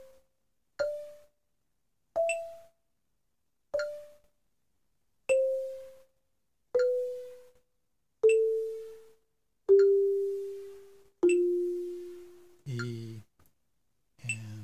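Marimba played with yarn mallets, one note struck about every second and a half at a very slow tempo. Each note rings and dies away, and the notes climb a little and then step down. Two short, low sounds come near the end.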